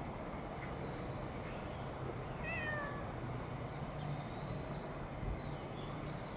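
A cat gives one short meow about two and a half seconds in, its pitch dropping at the end, over a steady low background hum.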